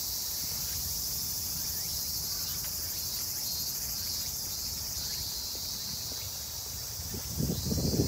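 Steady, high-pitched chorus of insects singing in the vegetation, unbroken throughout. Low rumbling bursts come in near the end.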